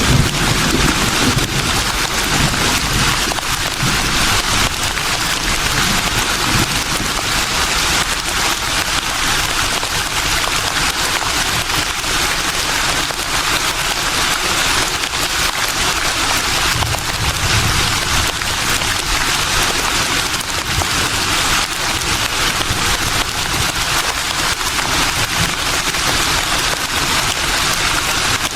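Leaves rustling in a steady breeze: a continuous even hiss. There is a brief low rumble about seventeen seconds in.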